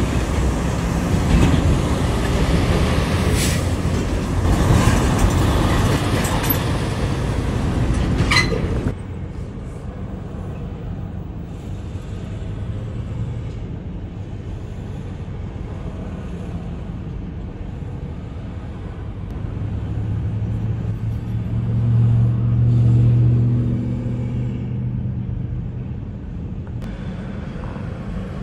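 Container semi-trucks passing close by, with loud engine and tyre noise and a brief high squeal, then quieter traffic with one diesel engine swelling and fading as it passes.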